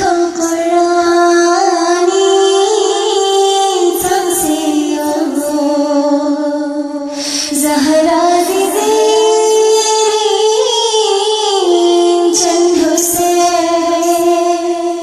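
A woman singing a traditional devotional qasida in the Balti language, with long held notes that slide smoothly between pitches.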